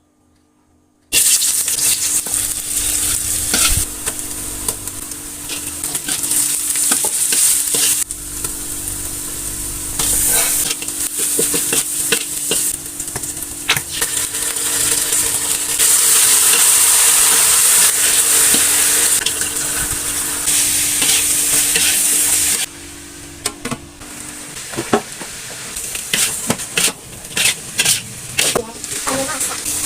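Food stir-frying in hot oil in a pan: a steady sizzle with frequent clicks and scrapes of a spatula stirring against the pan. It starts about a second in, after a moment of silence, and the sizzle drops to a quieter level near the end while the spatula clicks go on.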